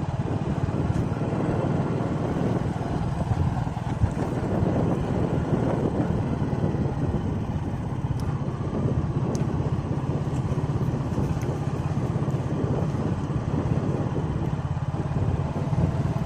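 Hero motorcycle's engine running steadily while it is being ridden, with an even rumble and road noise and no change in pace.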